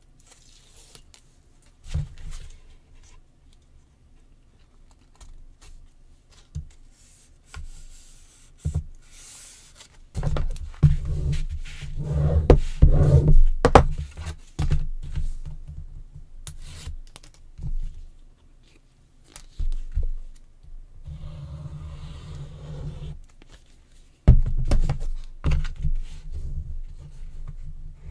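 Paper and chipboard pieces being handled and pressed down on a tabletop: scattered scrapes, rustles and light knocks, busiest in the middle and again near the end.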